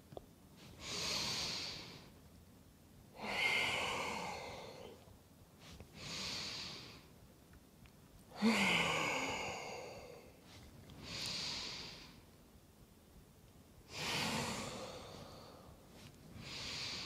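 A woman's slow, audible bellows-style yoga breathing: about three full breaths, each a short in-breath followed by a longer, louder out-breath.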